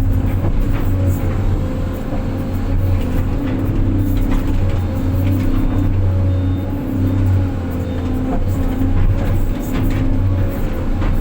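Excavator's diesel engine running steadily under work, a deep, even drone, with light clicks and knocks over it.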